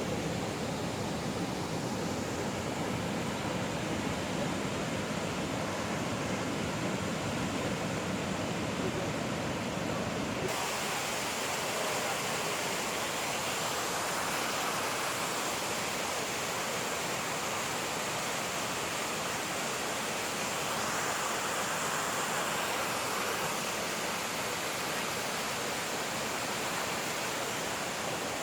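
Rushing, falling water of a waterfall and creek: a steady, unbroken noise. About ten seconds in it changes abruptly from a deeper rush to a brighter, hissier one.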